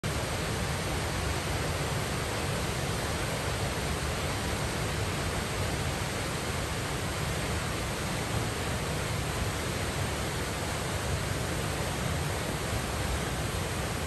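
Cheonjiyeon Waterfall's falling water: a steady, even rush of water plunging into its pool, unchanging throughout.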